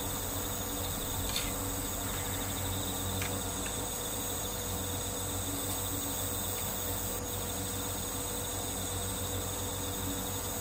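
Crickets chirping in a steady, high, pulsing trill over a low steady hum, with a few faint clicks.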